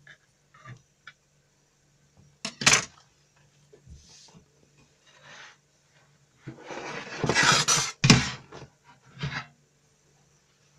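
Metal baking tray being handled as a baked sponge sheet is loosened and turned out: a sharp clatter a few seconds in, then a longer scraping, rustling stretch that ends in a loud knock of the tray, with a few lighter knocks after.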